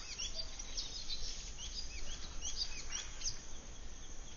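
Several birds chirping, with many short high calls, some dipping in pitch, repeating all through, over a faint low rumble.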